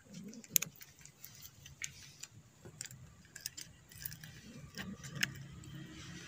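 A cat crunching dry kibble: irregular crisp clicks of chewing, the sharpest about half a second in.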